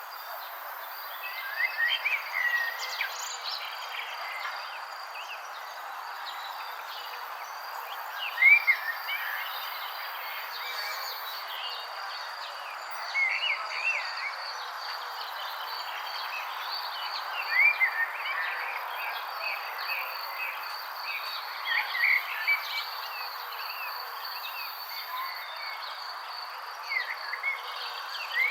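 Birds chirping in short phrases that come back about every four to five seconds, over a steady high insect trill and a constant hiss.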